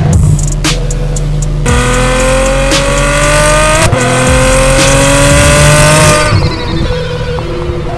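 Ferrari F12's V12 through an iPE titanium aftermarket exhaust, accelerating hard. After a few sharp cracks in the first two seconds, the pitch climbs through one gear, shifts up about four seconds in, and climbs again before fading out about six seconds in.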